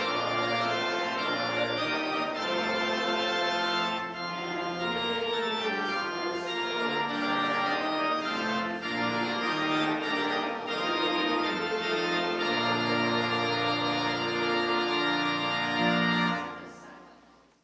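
Church organ playing a hymn in sustained chords, its final chord fading away near the end.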